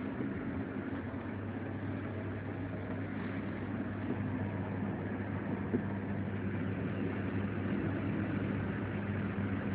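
Steady rumble of a moving passenger train heard from inside the carriage, with a constant low hum and one faint knock a little past halfway.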